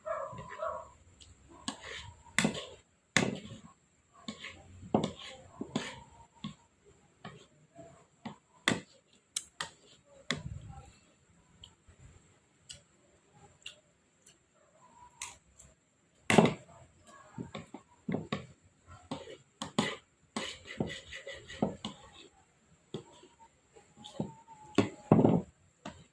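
Irregular clinks and taps of eating utensils against a dish during a baby's meal, with a few short vocal sounds between them.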